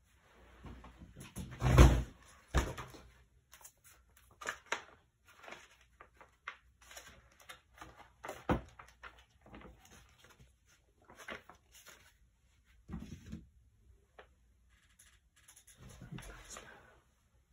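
Rummaging: irregular knocks, taps and rustles of things being moved and picked up, with one loud thump about two seconds in.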